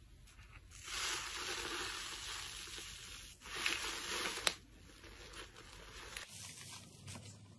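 Bubbly, foam-covered slime crackling and fizzing as a hand presses into it, the tiny bubbles popping. It comes in two spells, about two seconds and then one second, and goes on more faintly after.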